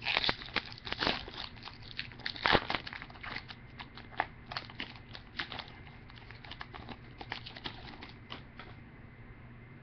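A Topps Chrome trading-card pack being torn open, its foil wrapper crinkling: a dense run of crackles over the first three seconds, loudest about two and a half seconds in, thinning to scattered ticks that stop near the end.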